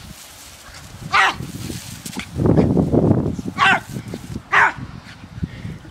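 Jack Russell terrier giving three sharp play barks, each dropping in pitch: one, then two about a second apart near the end. Between the first and second bark there is about a second of louder, rough low noise.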